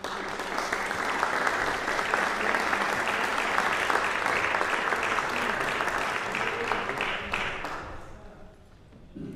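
Congregation applauding, a dense clatter of many hands that starts at once, holds steady, then fades out about eight seconds in.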